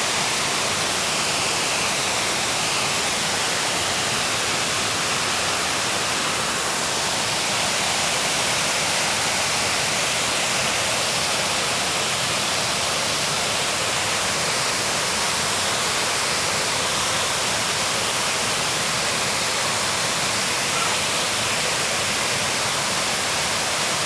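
Waterfall rushing steadily, an even, unbroken noise of falling water.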